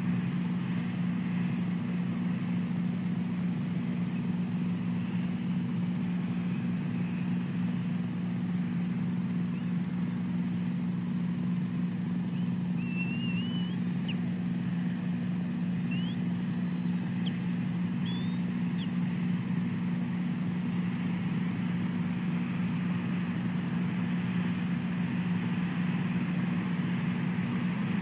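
A steady low hum with a few short, high chirping bird calls, some rising in pitch, a little under halfway through.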